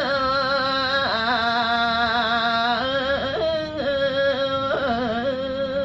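A solo voice singing a Balinese geguritan in the Sinom metre (pupuh Sinom), holding long drawn-out notes decorated with wavering ornaments, with short breaks between phrases.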